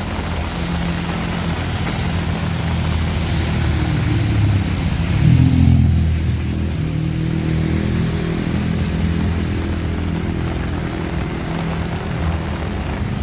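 A motor vehicle's engine passes, loudest about five seconds in and then fading, over the steady hiss of heavy rain.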